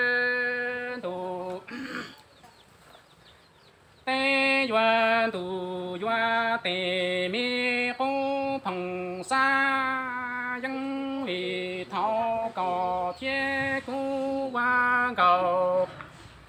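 Hmong kwv txhiaj sung poetry: one voice chanting lines on a few held pitches, stepping from note to note with short breaks. A long held note opens it, then the singing stops for about two seconds before going on.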